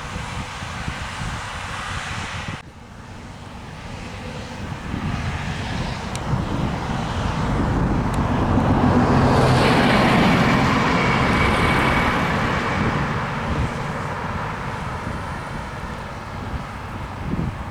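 New Holland CR8.90 combine harvester running as it harvests, its engine and threshing drone swelling to their loudest about halfway through with a high whine, then fading as it moves away. Wind buffets the microphone.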